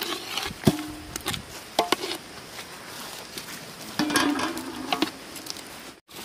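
Steel ladle stirring thick fish curry in a large aluminium pot, with several metallic clinks and scrapes against the pot that ring briefly. A longer scraping clatter comes about four seconds in.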